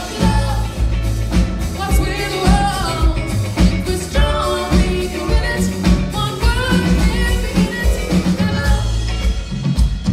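Live band playing: a woman singing lead over upright bass, acoustic guitar and drum kit, with a steady beat.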